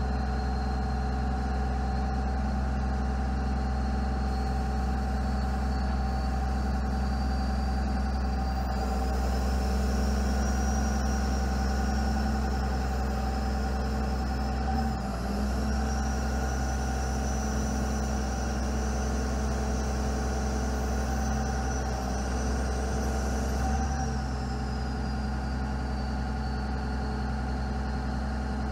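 Laurini Muletrax 2500 crawler carrier's diesel engine running steadily while its knuckle-boom crane is worked. A thin high hydraulic whine rises in pitch about a third of the way in and drops back a few seconds before the end.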